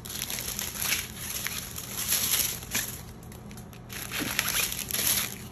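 Plastic crinkling and rustling as strips of small sealed bags of diamond painting drills are handled and laid down, with a quieter lull about three seconds in.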